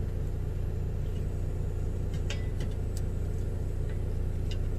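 Steady low rumble of an idling engine, with a few light clicks from a utensil against a pan about two and a half seconds in and near the end.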